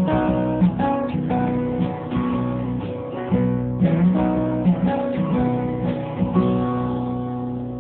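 Acoustic guitar strumming a children's song accompaniment with no singing, slowly fading out toward the end.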